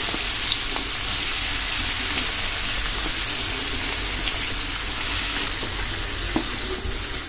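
Hot oil and butter sizzling steadily in a kadai as chopped onion goes into it, a high even frying hiss.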